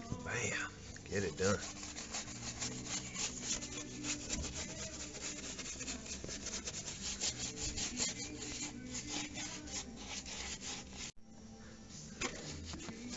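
A brush scrubbing the underbody and suspension parts inside a car's wheel well in rapid, repeated strokes. The scrubbing breaks off briefly near the end.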